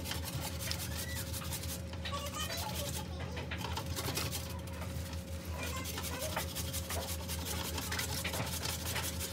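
Bare hands rubbing and squishing a wet garlic marinade into raw beef strips: soft, irregular wet rubbing and scraping sounds over a steady low hum.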